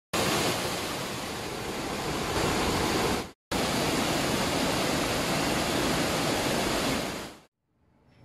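Waterfall: a steady rush of falling water. It cuts out for a moment about three and a half seconds in, then resumes and fades away about seven seconds in.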